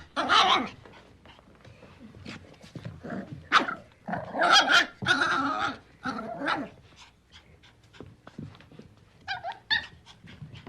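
A puppy making a series of high-pitched calls and barks. There is a run of longer calls around the middle and two short yips near the end.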